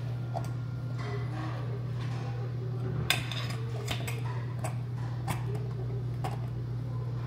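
Eating utensils clinking against a bowl and dishes: about half a dozen separate sharp clicks, the sharpest about three seconds in, over a steady low hum.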